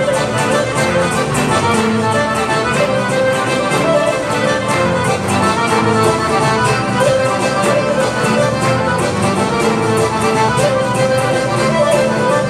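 Albanian folk dance music playing continuously with a steady beat.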